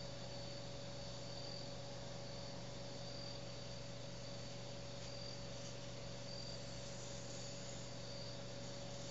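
Faint high chirps repeating about once a second, typical of insects such as crickets, over a steady hiss and a constant low hum.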